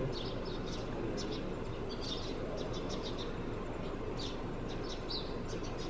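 Small birds chirping in quick, irregular short calls, over a steady low background noise.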